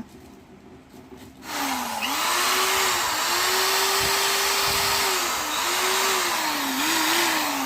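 Corded impact hammer drill running free with no load, switching on about a second and a half in. The motor whine rises and dips as the trigger is squeezed and eased, then starts to wind down near the end.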